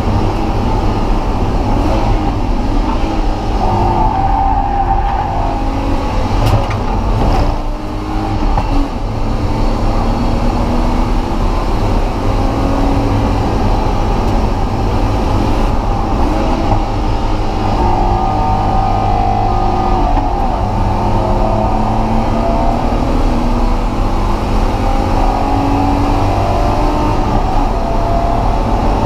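BMW E36 M3's straight-six engine being driven hard on track, its pitch rising and falling repeatedly as it accelerates and lifts, with a short dip in level about eight seconds in.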